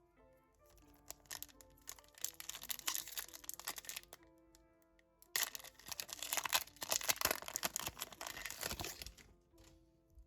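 Pokémon booster packaging crinkling and tearing open in two long bursts, the second louder, over background music.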